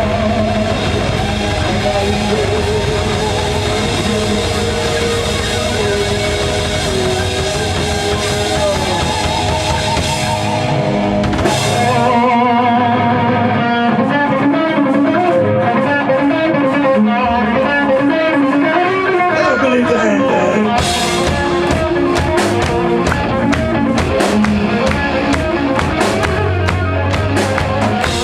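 Live rock band playing an instrumental passage: electric guitar leading over drum kit, bass and keyboards, with cymbal crashes about eleven and twenty-one seconds in.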